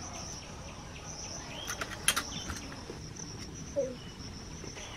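Steady high-pitched chirring of insects in the background, with a short cluster of sharp clicks about two seconds in.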